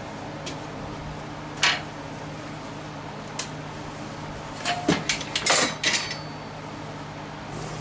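Metal clinking and clattering as hard objects are handled and set down: a sharp knock about two seconds in, then a quick run of clinks and knocks a few seconds later, over a steady low hum.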